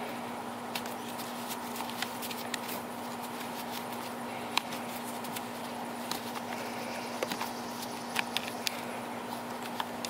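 Scattered small clicks and taps at irregular intervals as a bolt is worked loose by hand and with an adjustable wrench from the back of a plastic fan motor cover, over a steady low hum.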